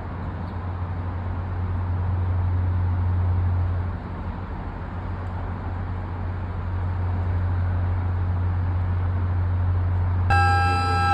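Steady hum of city traffic with a low drone underneath. Near the end a loud siren of several tones starts suddenly.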